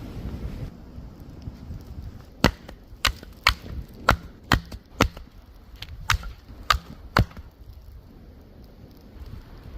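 Firewood being chopped: about nine sharp chops roughly half a second apart, with a short break partway through.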